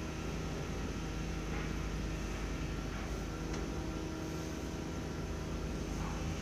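Steady machine hum with a low drone and a hiss, with a few faint light taps over it.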